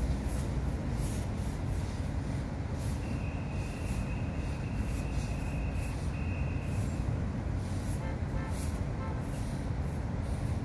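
Steady low rumble of city traffic moving along a snow-covered road, with a faint high whine for a few seconds in the middle.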